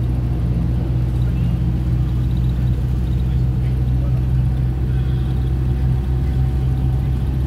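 Steady low engine drone and road noise heard from inside the cabin of a moving vehicle cruising along a road.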